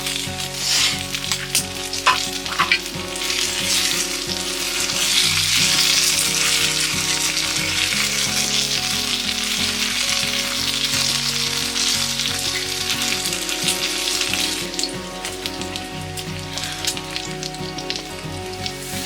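Food sizzling as it fries in a pan, a steady hiss with a couple of sharp clicks about two seconds in, over background music.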